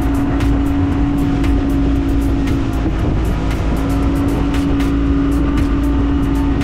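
A boat's motor running steadily under way, with a constant hum and a low rumble, and frequent short knocks or slaps over it.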